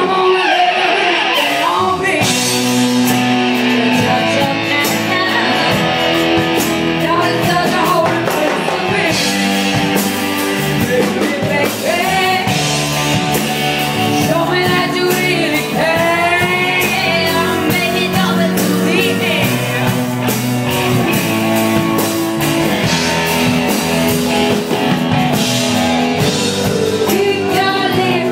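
Rock band playing live: a singer over electric guitars and drums, with a steady beat.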